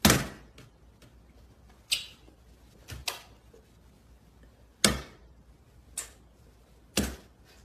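A toddler's hands slapping and patting against a mirrored door: about six sharp slaps on the glass, spaced irregularly about a second apart, the first and the one near five seconds the loudest.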